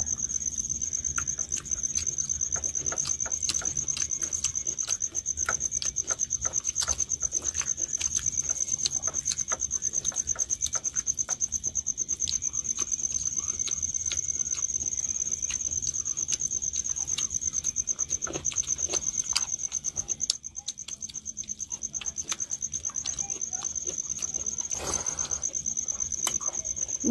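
A steady high-pitched insect trill, pulsing rapidly and without a break, over soft wet clicks and smacks of two people eating rice and egg curry with their hands from steel plates.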